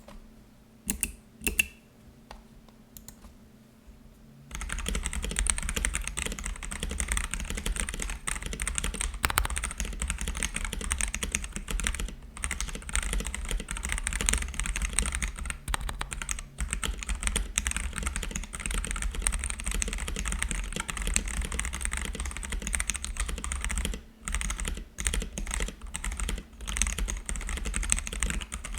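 KBD67lite v1 mechanical keyboard with Kailh Box Heavy Burnt Orange tactile switches on a polycarbonate plate, being typed on. A few single keystrokes come first, then fast continuous typing from about four seconds in, with a couple of brief pauses near the end.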